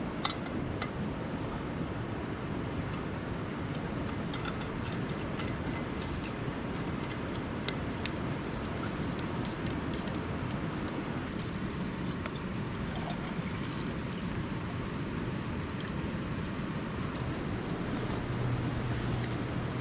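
Rain falling on a tent: a steady hiss with scattered sharp ticks of individual drops.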